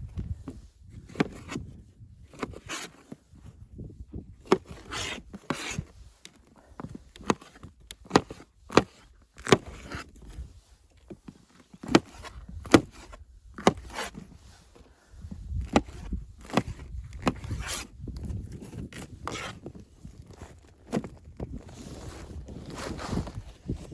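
Irregular sharp knocks and clicks, one or two a second, with rubbing and scraping between them, like hands working with wood or gear. A low rumble rises under them in the second half.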